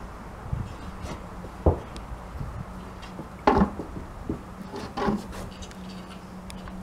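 A few separate knocks and scuffs on wooden floorboards, about two seconds apart, from a horse's hooves and a farrier's feet shifting during a hoof trim. A faint steady low hum runs underneath.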